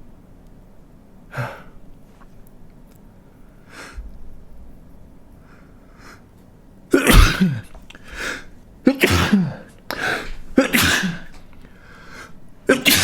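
A man sneezing several times in quick succession, a fit of loud voiced sneezes starting about halfway in, preceded by a few quieter sharp breaths.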